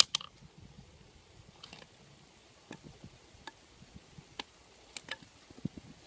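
Bamboo sticks of a ground bird trap handled by hand while it is being set: a sharp click at the very start, then a scattered handful of light clicks and taps.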